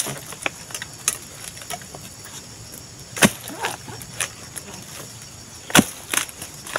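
Long-handled harvesting tool chopping into the stalk of an oil palm fruit bunch: a series of sharp strikes at uneven intervals, the loudest about three and six seconds in.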